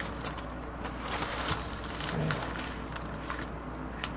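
Quiet handling noise as a newspaper is moved aside: faint rustles and a few soft taps, with a brief low hum a little over two seconds in.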